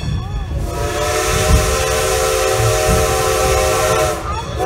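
Steam whistle of Great Western Railway No. 90, the steam locomotive hauling the train, sounding one long blast of several tones at once with a hiss of steam, starting about a second in and lasting about three and a half seconds. Under it runs the low rumble of the moving train.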